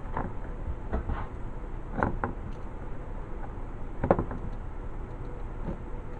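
A handful of short clicks and scrapes over a low steady hum, as old rubber bands are cut off a wrist rocket slingshot with a razor knife. The loudest click comes about four seconds in.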